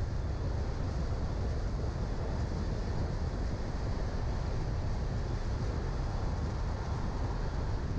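Steady low rumble of a car on the move, road and wind noise with a hiss over it.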